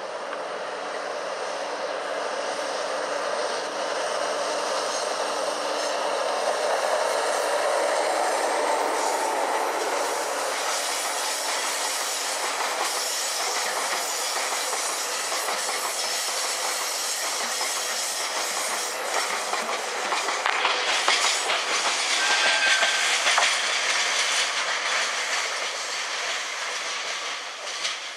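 Freight train of tank wagons hauled by a diesel locomotive passing close by: the locomotive's engine sound builds as it comes near, then from about ten seconds in the wagons' wheels clatter rhythmically over the rail joints, loudest about three-quarters of the way through, with a brief high squeal.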